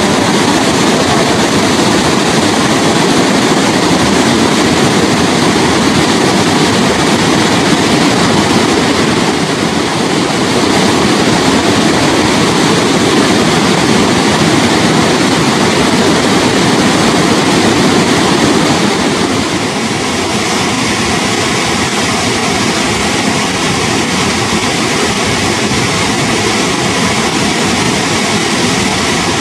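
Victoria Falls: the Zambezi's water plunging over the rim in a loud, steady roar, a little quieter about two-thirds of the way through.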